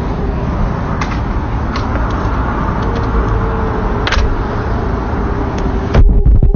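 Steady outdoor noise picked up on a handheld phone's microphone while walking, with a few faint clicks and loud low thumps near the end.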